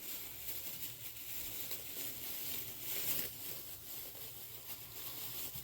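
Packaging crinkling and rustling steadily as the doll kit's parts are unwrapped and handled.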